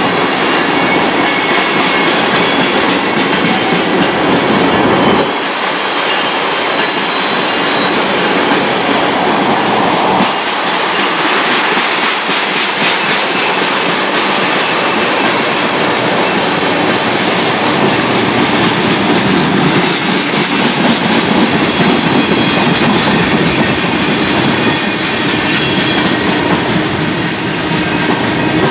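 Freight train cars rolling past close by, tank cars and then flatcars, their steel wheels running loud and steady on the rails.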